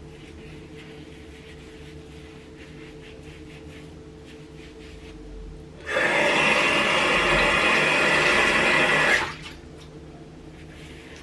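Tap water running hard for about three seconds, starting and stopping abruptly, over a faint steady low hum.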